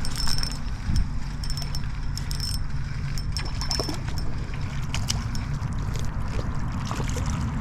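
Fishing reel being cranked as a hooked crappie is reeled in, with an on-and-off high whir in the first half and scattered small clicks over a steady low rumble.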